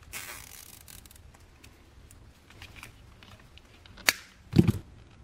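Nylon zip tie pulled tight around a taped wire splice, a short rasp as it runs through its ratchet, then a single sharp snip about four seconds in as side cutters cut off the tail, followed shortly by a dull knock.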